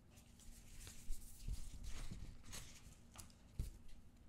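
Glossy photo cards and paper handled in gloved hands: soft rustling and sliding of card against card, busiest in the middle, with a few light taps and clicks and a sharper tap near the end.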